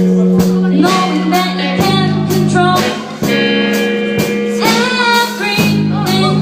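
Live rock band playing: a steady drum beat and sustained bass notes under a sung vocal line.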